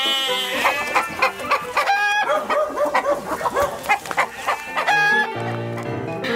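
Chickens clucking in a quick run of short calls, with a rooster crowing, over background music. A low held tone comes near the end.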